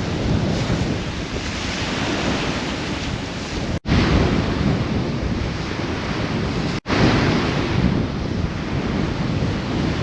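Wind buffeting the microphone over waves breaking on the shore, a steady rumbling rush. The sound cuts out for an instant twice, about four and seven seconds in.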